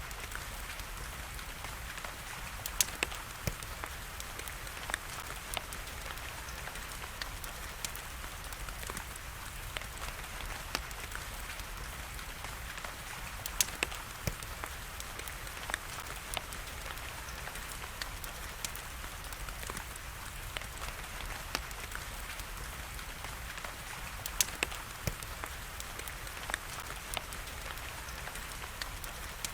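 Steady hiss of rain with a wood fire crackling over it: scattered sharp pops, clustered about three seconds in, around fourteen seconds and around twenty-five seconds.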